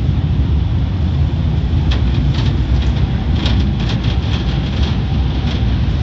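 Automatic car wash heard from inside the car: a loud, steady low rumble of the wash equipment, with scattered light taps and brushing from about two seconds in as the hanging cloth strips drag across the windshield.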